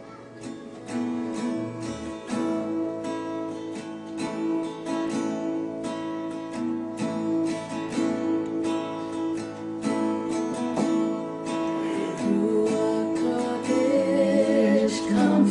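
Acoustic guitar playing the introduction to a worship song, picked and strummed notes in a steady rhythm, with a wavering melody line coming in near the end.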